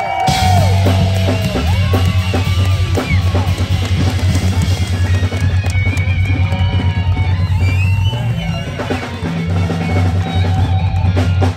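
Live blues band playing loudly: an electric guitar lead with bent, gliding notes over bass guitar and drums.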